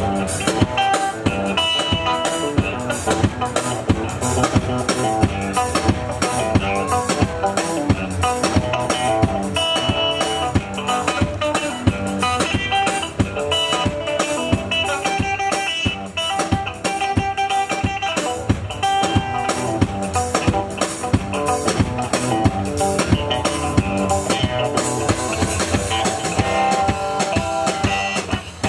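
Live band music without vocals: an electric guitar playing over a drum kit keeping a steady beat.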